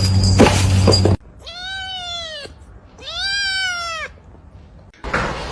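A loud second of mixed noise with a low hum, then a cat gives two long meows, each about a second long, the pitch rising and then falling.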